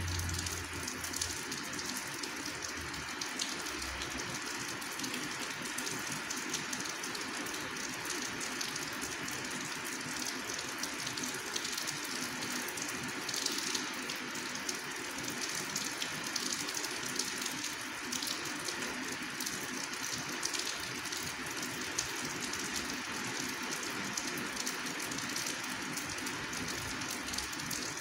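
Steady rain falling, with individual drops ticking close by.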